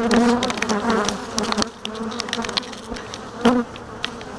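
Africanized honey bees buzzing close around the microphone: several bees fly past, each buzz rising and falling in pitch, with a few sharp ticks. They are disturbed, defending their hive.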